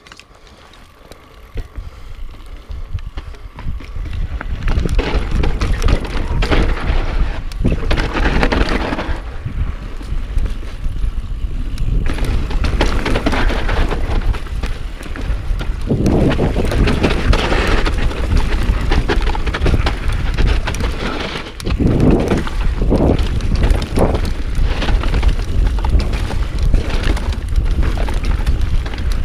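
Mountain bike descending a dirt singletrack at speed, heard from a chest-mounted action camera: wind buffeting the microphone, with tyres rolling on dirt and the bike clattering over bumps. It starts quiet, builds over the first few seconds as the bike gathers speed, and eases briefly about three-quarters of the way through.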